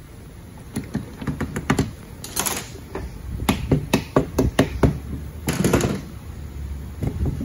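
Light metallic clicks and taps, several a second, from hands working on the valve body and wiring harness of a Dodge 48RE automatic transmission. Two brief swishes come in between.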